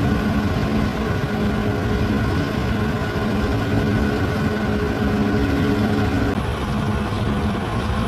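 Bulldozer's diesel engine running steadily under work, with a shift in tone about six seconds in.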